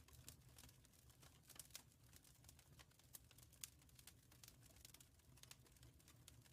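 Faint wood fire crackling in a fireplace: irregular small pops and snaps, several a second, over a low steady hum.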